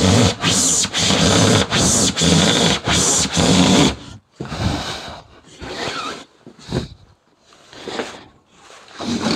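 Handsaw cutting through a foil-faced PIR insulation board with rasping push-pull strokes, about two to three a second. From about four seconds in the strokes turn slower and softer as the cut nears the end.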